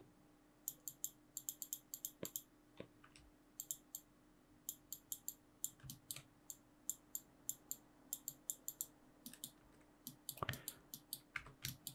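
Computer mouse and keyboard clicks, faint and irregular, a few a second, over a faint steady hum, with a soft thud near the end.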